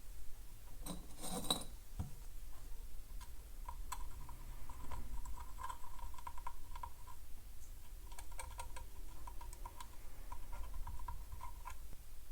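Light clicks and scratches of small tools and parts being handled on a workbench, with a short rustle about a second in and a faint high whine that comes and goes.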